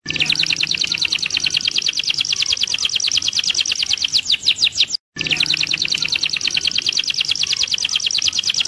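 A songbird singing a long, rapid trill of high repeated notes, about ten a second. The trill cuts off abruptly about five seconds in, then starts again at once.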